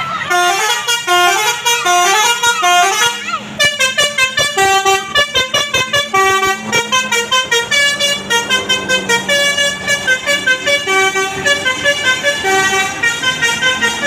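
High-decker tour bus's basuri 'telolet' multi-tone horn playing a fast, loud melody of short stepped notes. A repeating phrase is followed, after a brief break a few seconds in, by a quicker run of notes.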